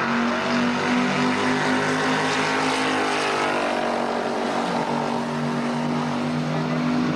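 Drag-racing cars' engines running hard down the strip: a loud, steady, multi-toned engine drone. Partway through, one note falls in pitch as a car passes.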